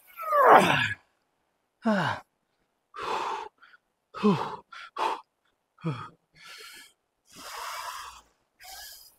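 A man breathing hard through heavy Smith machine back squats with 100 kg on the bar. Sharp breaths alternate with loud voiced grunts that fall in pitch, about four of them, one per rep; the first, right at the start, is the loudest.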